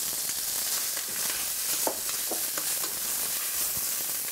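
Leftover cooked rice sizzling in hot olive oil with garlic in a stainless steel pot: a steady frying hiss, with a few short clicks and scrapes from the spoon stirring it.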